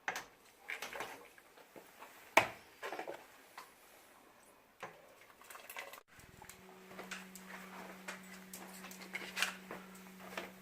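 Kitchen handling sounds: scattered light clicks and knocks of dishes and utensils, one sharper knock a little over two seconds in. From about six seconds a steady low hum sets in.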